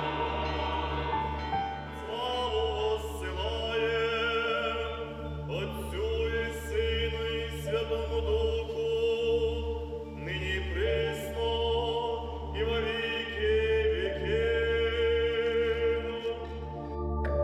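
Choral singing in long, sustained phrases with vibrato, over a steady low drone; the sound of a church choir singing during an Orthodox liturgy.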